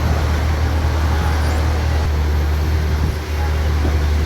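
Steady low vehicle rumble with a broad hiss over it.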